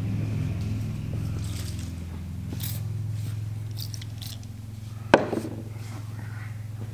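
A few short hisses from an aerosol lubricant spray can, then a sharp knock about five seconds in as the can is set down on a wooden workbench, over a steady low hum.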